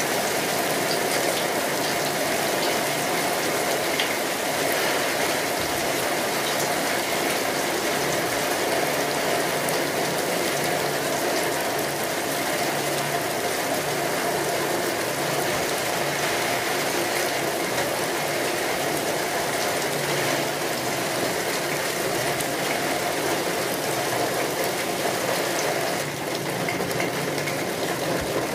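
Steady rain falling, a dense even hiss of many small drops that runs on unchanged, dipping slightly in level near the end.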